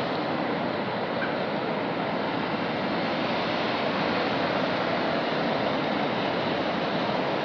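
Water pouring over a dam spillway into the river below: a steady, unbroken rush of white water.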